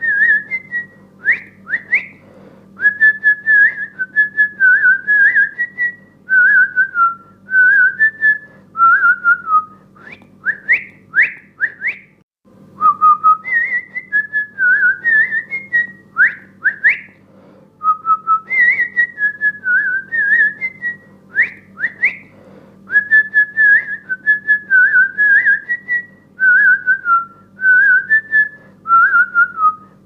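A whistled tune: a short phrase of wavering notes, then four quick upward-swooping whistles, repeated about every eight to nine seconds over a faint steady hum.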